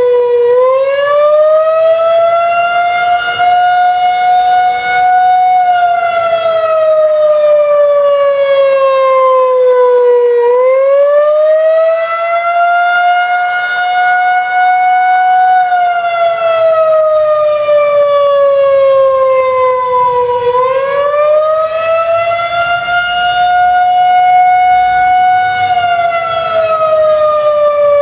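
Federal Signal 2001-130 electromechanical outdoor warning siren sounding a slow wail: the pitch climbs over about a second and a half, holds, then slides down over several seconds, repeating about every ten seconds. This slow up-and-down cycling is the Attack signal of the test.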